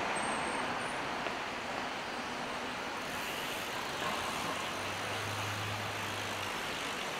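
City street traffic: a steady wash of passing cars, with a low hum for a second or two in the second half.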